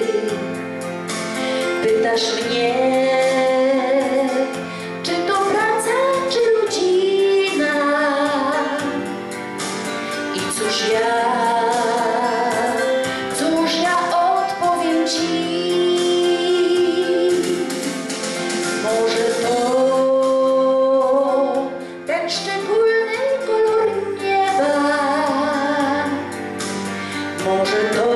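A woman singing a song into a microphone over instrumental accompaniment, with long held notes that waver in vibrato.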